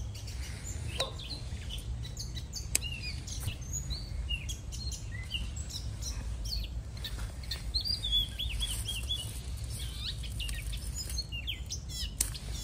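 Small birds chirping, many short high calls and quick little whistles, with a few sharp clicks and a steady low rumble underneath.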